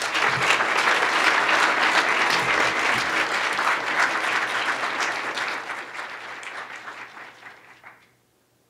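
Audience applauding, loud at first, then dying away over the last few seconds and stopping shortly before the end.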